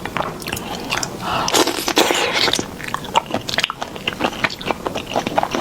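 Close-miked mouth sounds of eating sauced shrimp: biting and chewing with many quick crunchy clicks and crackles, and a denser, busier stretch about a second and a half in.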